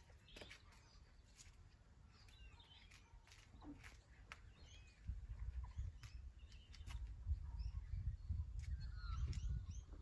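Birds chirping and calling outdoors, many short calls throughout, with a few faint clicks. About halfway through a low, gusty rumble comes in and stays: wind buffeting the microphone.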